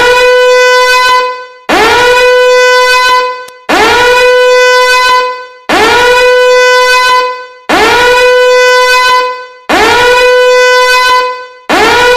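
Repeating danger-alarm horn: each blast slides up quickly into a steady, buzzy horn tone, holds for about a second, then fades away. The blasts come regularly every two seconds, about six of them, with another starting at the very end.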